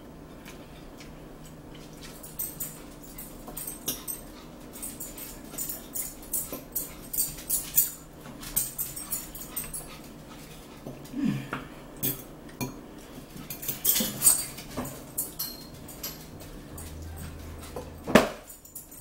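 Eating at a table: forks clicking and scraping on plates and chewing close to the microphone, in many short irregular clicks. A sudden loud knock comes near the end.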